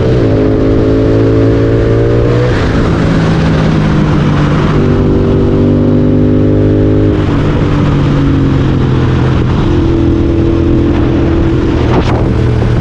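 Royal Enfield Continental GT 650's parallel-twin engine through a Red Rooster aftermarket exhaust, heard onboard while riding: the engine note climbs under acceleration and drops at each gear change, several times. A sharp click near the end.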